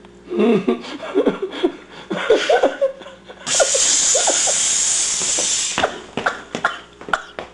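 Laughing and vocal noises, then a loud, steady hiss of steam for about two seconds that starts and cuts off suddenly, followed by a few light clicks.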